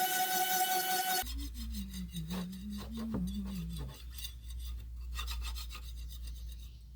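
Sanding paint off a boat hull: a steady whine for about the first second, then an abrupt change to repeated rubbing strokes of the sanding against the hull.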